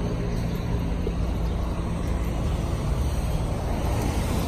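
Steady city street traffic noise, a continuous low rumble of passing cars.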